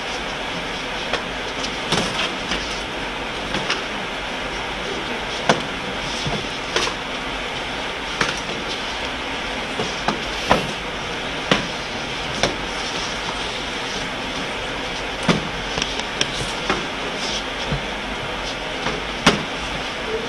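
Sharp, irregular slaps and thuds, one every second or two, from two martial arts students' footwork and strikes on a hard floor, over a steady background hiss.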